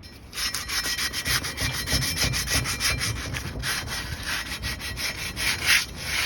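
Sandpaper rubbed quickly back and forth over the curb-rashed lip of an alloy wheel rim. The scratchy strokes start about half a second in and keep a steady rhythm. The sanding smooths out the curb damage before filler goes on.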